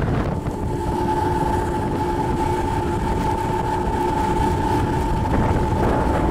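Mercury outboard motor running at speed on a planing boat, a steady drone with a high whine over it, mixed with rushing wind and water.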